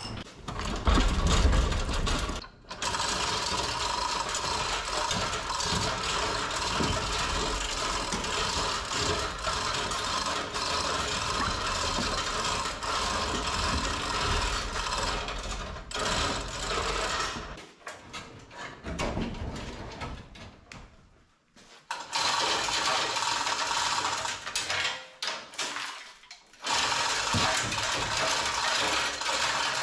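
Steady mechanical clatter of tools at work on an engine removal, as the last motor-mount bolts come off and the engine is taken up on a chain hoist. It runs in long stretches and stops and starts abruptly several times.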